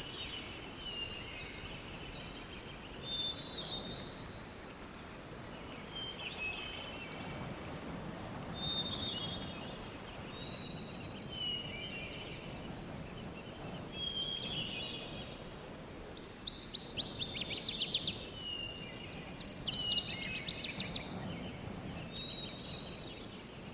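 Wild birds calling in short, repeated phrases over a low outdoor background hiss. Twice in the second half, a rapid run of clicking, chattering calls comes in louder than the rest.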